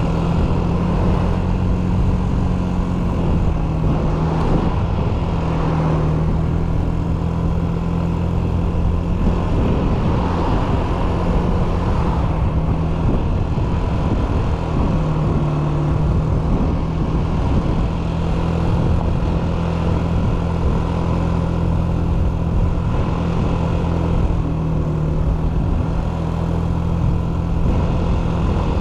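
Yamaha Smax 155cc four-valve single-cylinder scooter engine running at a steady cruise under way, heard from on board with wind and road rush over the camera microphone.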